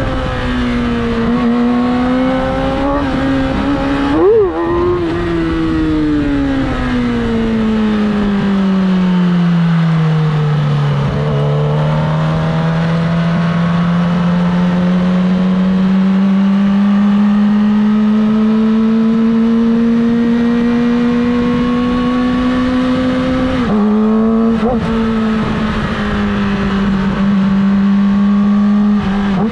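Yamaha R6 inline-four engine heard from the saddle while riding. There is a quick sharp rev about four seconds in, then the note falls steadily as the bike slows. It climbs gradually as the bike pulls away again, with a brief break in the note, like a gear change, near the end.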